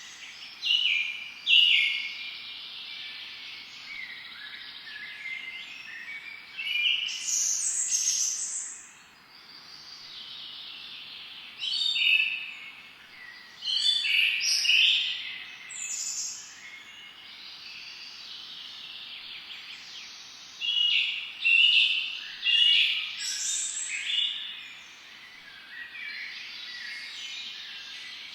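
Wild birds singing and chirping in repeated bursts of phrases over a steady high background of further bird calls.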